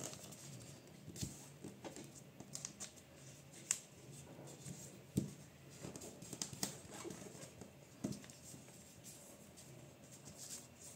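A sheet of A4 printer paper being folded and creased by hand: faint, irregular rustling and crackling with a few sharper clicks as folds are pressed flat.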